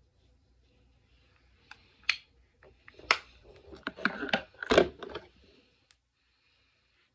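Clicks, knocks and rustling of makeup items being handled and set down, several sharp clicks among them, as a liquid eyeliner pen is picked up.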